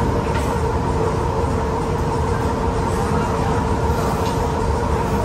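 Steady mechanical hum: a constant tone over a low rumbling noise that does not change.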